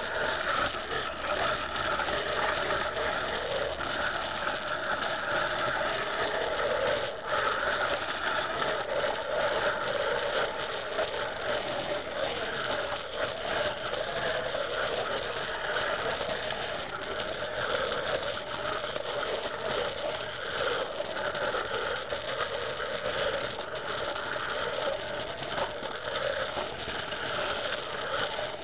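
Steady, dense crackling noise at an even level, with no breaks, no rhythm and no speech: a harsh noise-music drone.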